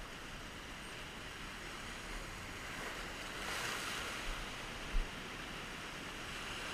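Ocean surf washing against rocks, a steady rush that swells louder as a wave surges in about three and a half seconds in. A short knock sounds about five seconds in.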